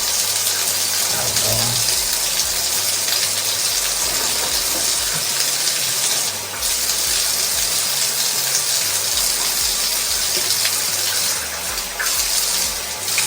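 Tap water running steadily as hair is rinsed under it to wash out a product until the water runs clear. The flow briefly drops about six seconds in and twice near the end.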